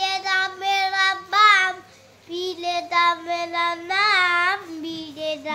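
A young boy singing unaccompanied in a high voice, holding long notes. He breaks off briefly about two seconds in, and his last note slides downward at the end.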